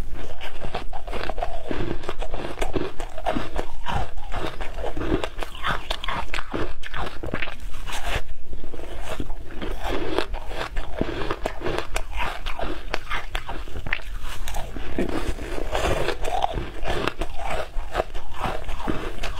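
Biting and chewing of frozen shaved-ice blocks topped with passion fruit pulp: a dense run of crunches and crackles, bite after bite.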